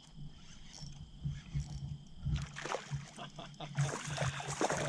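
A fishing reel being cranked as a small largemouth bass is reeled in to the kayak, with water splashing as the fish reaches the surface from about halfway through.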